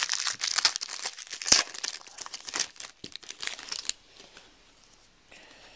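A football card pack's wrapper being torn open and crinkled by hand, a dense run of crackles that stops about four seconds in.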